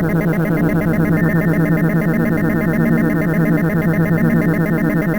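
A cartoon attack sound effect: a continuous synthesized electronic buzz with a rapid flutter over steady low tones, held at an even level.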